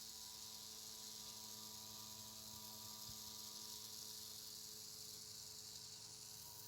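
Near silence: a faint, steady high hiss with a low electrical hum, background noise of the recording.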